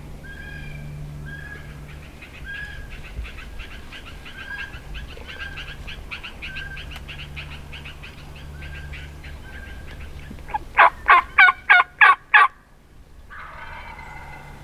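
Wild turkeys gobbling again and again. About two-thirds of the way in comes a loud, close series of six evenly spaced turkey yelps, and after a short pause the gobbling starts again.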